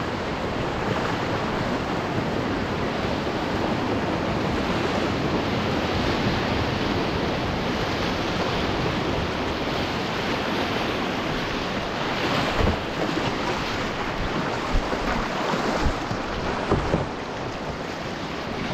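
Whitewater rushing around a canoe as it runs a river rapid, with wind rumbling on the microphone. A few low thumps come in the last third.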